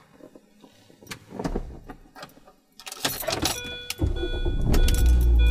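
Keys jangling and clicking at the ignition, then about four seconds in a 2003 Mini Cooper's non-turbo 1.6-litre four-cylinder engine starts and runs at idle. The car radio comes on with it, playing music.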